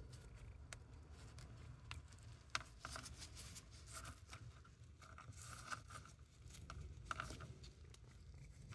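Irregularly shaped Neoparth naphthalene mothball being crushed between gloved fingers: scattered faint crackles with a few sharper snaps as the tablet cracks and crumbles.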